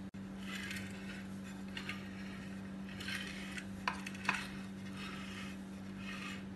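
A serving spoon pressing and scraping cooked biriyani rice against the inside of a clay pot in several short scrapes, with two light knocks about four seconds in. A steady low hum runs underneath.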